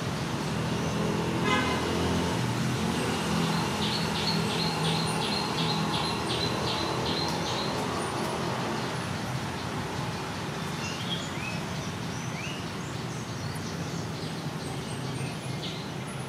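Street and bird ambience: a vehicle engine hums in the background, strongest in the first half. Over it, birds chirp, with a quick run of about a dozen repeated high chirps a few seconds in and scattered single chirps near the end.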